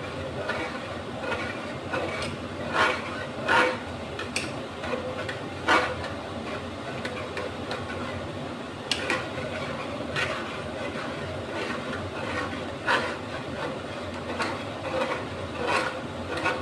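Kitchen utensil knocking and clinking against a cooking pot at irregular intervals, about every one to three seconds, as in stirring kadhi, over a steady hiss.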